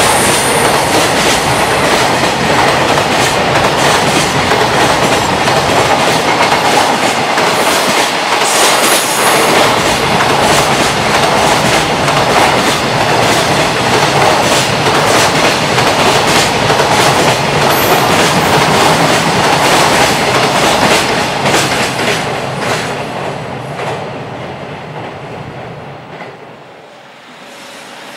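Freight train wagons passing at speed over rail joints: a rapid, continuous clickety-clack of wheels on the joints. The sound fades away over the last several seconds as the train moves off.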